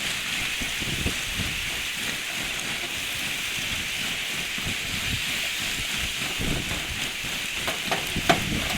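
Shoving lake ice grinding ashore: a steady hissing crackle of ice crystals and broken sheets rubbing and piling up, with a sharper crack near the end.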